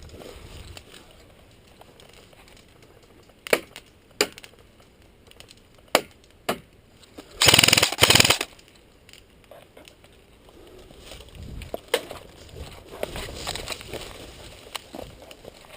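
Airsoft guns firing: a few single sharp shots, then a loud rapid full-auto burst lasting about a second. Rustling and shuffling noise follows near the end.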